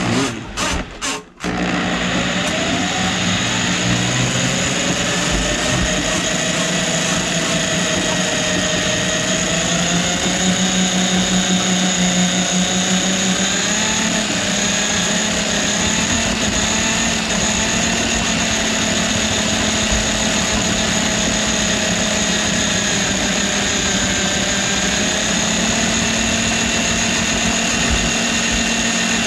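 Drill-motor drum drain cleaning machine starting up about a second and a half in, after a few short blips, then running steadily as its spinning cable is fed into a kitchen drain line clogged with grease. The motor's whine wavers slightly in pitch as the cable works in the pipe.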